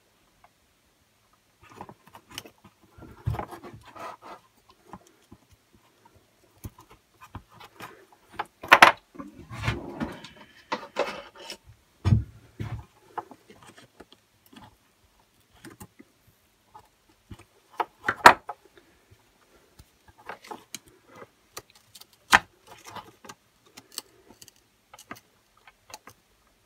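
Scattered small clicks, taps and rustling of fingers working a stubborn rubber fuel pipe off the back of a Stihl BG86 leaf blower's carburettor, with a few sharper clicks along the way.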